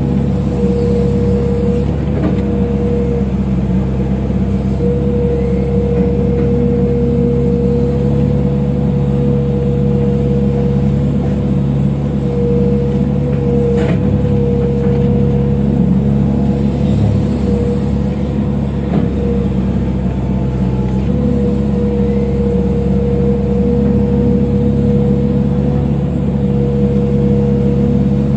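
Excavator's heavy diesel engine running steadily under load, with a steady high tone over the engine note that drops out briefly now and then.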